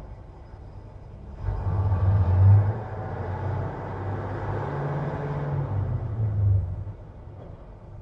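KrAZ six-wheel-drive truck's diesel engine revving up hard and holding for several seconds, then easing off, as the truck spins its wheels stuck in snow.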